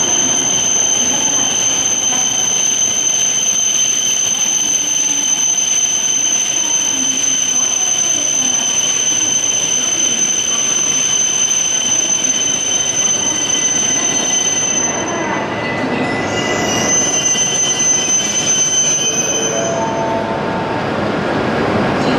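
Shinkansen train at the station platform: a steady rumble of train running noise with a constant high-pitched whine. The whine changes pitch about fifteen seconds in, and the rumble briefly dips at that point.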